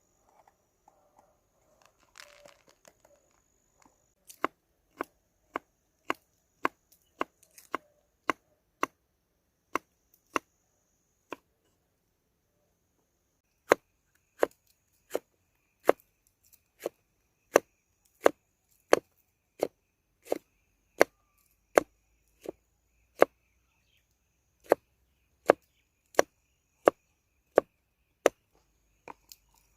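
Knife chopping on a cutting board in steady, even strokes, roughly two a second, starting about four seconds in with a short pause of a couple of seconds midway.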